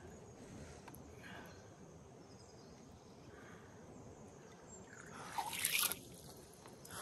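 Soft water sloshing and dripping, then a short, loud splash about five seconds in: a big common carp being let go back into the river and kicking away.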